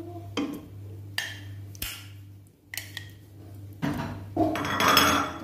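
Raw chicken drumsticks set into a non-stick pan and moved about with plastic tongs: a few separate soft knocks and clacks against the pan and plate, then a busier, louder stretch of handling near the end, over a steady low hum.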